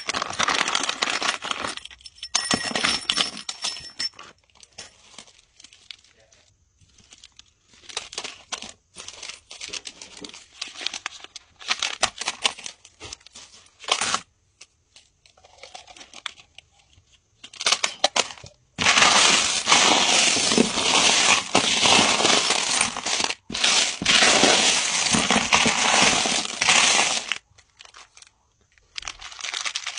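Plastic bags crinkling and small tumbled stones clinking as hands rummage through a plastic-lined bin of crystals, in short scattered rustles. In the second half comes a long, louder stretch of continuous rustling and rattling.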